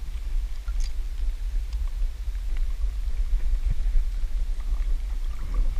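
Wind buffeting the head-mounted camera's microphone: a steady, uneven low rumble, with a few faint clicks.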